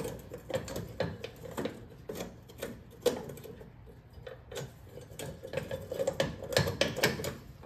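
Irregular light clicks and ticks as a screwdriver works the small screws of a car headlight's retaining ring. Metal clinks come as the ring and sealed-beam headlight loosen, and they grow thicker near the end.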